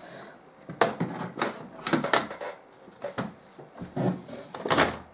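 About five short clicks and knocks, spaced irregularly, as an old plastic-cased laptop is handled and moved about.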